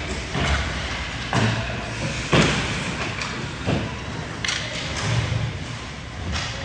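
Irregular thuds echoing in a large hall, the loudest a little over two seconds in, typical of a ball bouncing and players' feet landing on a sports hall floor during a game.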